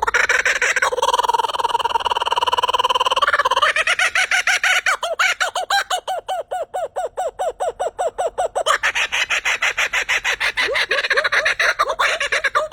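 A bird calling loudly: a held, wavering call for the first few seconds, then a long, rapid run of short repeated notes.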